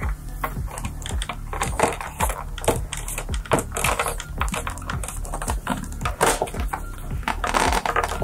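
Plastic side fairing of an Aprilia RSV4 being pried loose by hand: a rapid, irregular run of clicks as its top retaining pins start to disengage.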